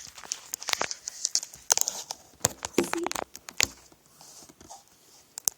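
Handling noise: a quick run of sharp clicks, taps and rustles, busiest in the first three and a half seconds, then fainter with a few scattered clicks.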